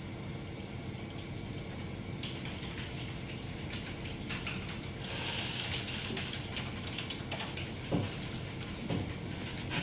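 Steady background noise with a low hum, with a few scattered clicks and knocks, the loudest about eight and nine seconds in.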